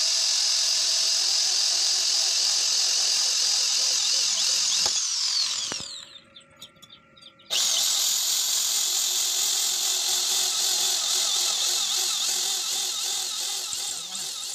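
INGCO corded electric drill boring into a welded metal bar, its motor giving a steady high whine. About five seconds in the motor winds down with a falling pitch and stops. After a pause of a second or so it starts again and runs on.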